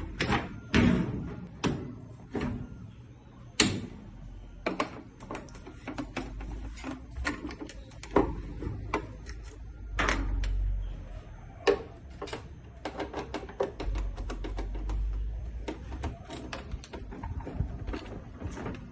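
Brastemp 15 kg washing machine running with irregular knocking and clattering over a low rumble that swells and fades a few times: bearing noise from a worn, rusted drum bearing.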